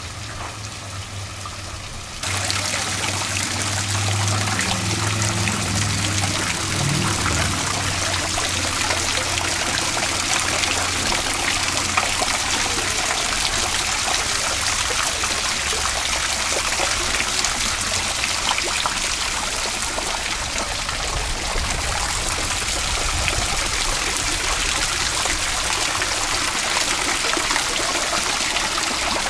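Water from a garden fountain falling from its upper basin and splashing into the pool below: a steady splashing hiss that jumps suddenly louder about two seconds in.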